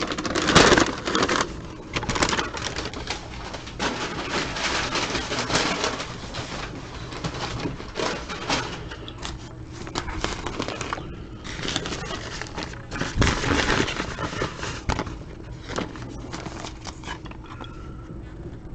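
Plastic packaging crinkling and rustling in irregular bursts as it is handled, with a short pause about eleven seconds in, over a faint steady hum.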